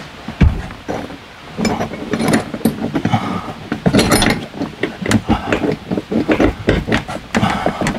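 Steel wire-rope cables of a BAL Accu-Slide room being pulled and tensioned by hand in their bracket, with irregular metallic clinks, clicks and knocks and a sharp thump about half a second in.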